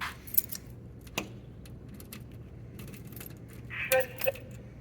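Small metal objects clicking and jangling as they are handled, in scattered sharp clicks over a steady low hum, with a brief voice-like sound just before four seconds in.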